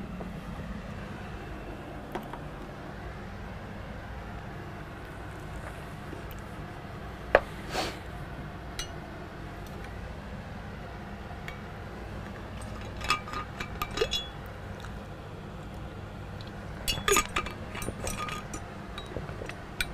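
Quiet room tone with a steady low hum, broken by a few light clicks and clinks: a couple about seven seconds in, a small cluster about halfway through, and another near the end.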